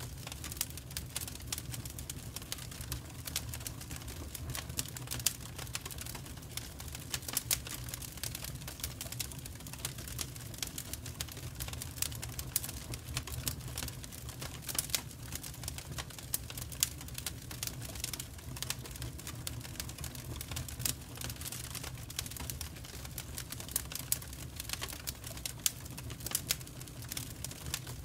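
Wood fire burning in an open fireplace grate, its birch and split logs crackling with many small irregular pops and snaps throughout.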